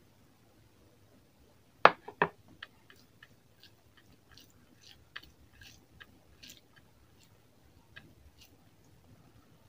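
Close-miked eating by hand: soft, irregular wet clicks of chewing and of fingers mixing rice into chicken curry gravy. Two sharp knocks about two seconds in are the loudest sounds.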